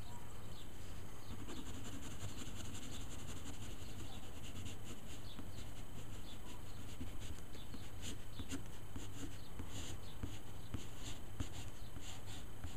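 A wooden graphite pencil scratching on paper in quick, irregular short strokes as a drawing is sketched and shaded.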